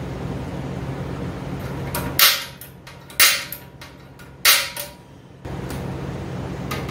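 Three loud, sharp knocks about a second apart, each trailing off briefly, over a steady background hum that drops out while they sound.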